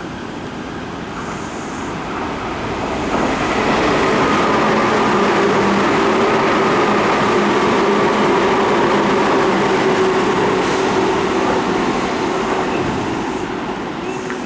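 Tokyo Metro 03 series electric train running along the platform: wheel-on-rail noise and a motor whine build up, hold loud for several seconds, then fade toward the end.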